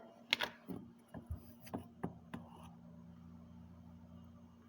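Faint scattered clicks and light knocks of kitchen utensils being handled, about six in the first two and a half seconds, followed by a faint steady low hum.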